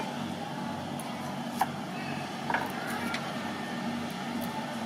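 A knife slicing shallots on a wooden chopping board, giving a few sharp taps spread over the first three seconds, over a steady low engine-like drone.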